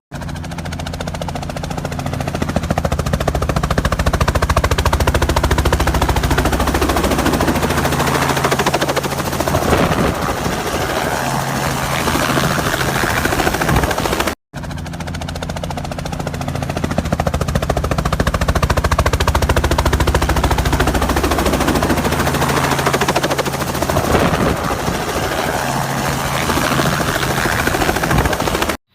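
Multirotor drone flying, its propellers giving a loud, continuous buzzing drone with a steady low hum, broken by a brief dropout about halfway.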